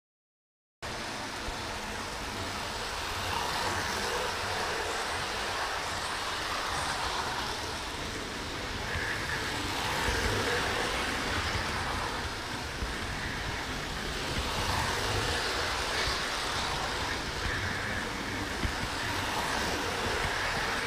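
Model train running along its track, heard from a camera riding on one of its wagons: a steady rolling rumble of wheels on rails that starts abruptly about a second in, swelling and easing a little as it goes.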